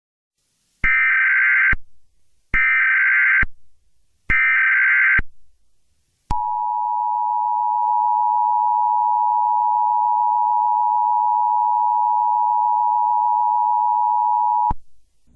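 Emergency Alert System tones: three short, shrill SAME header data bursts about a second apart, then the steady two-tone EAS attention signal held for about eight seconds before it cuts off. Together they mark the start of a new emergency alert.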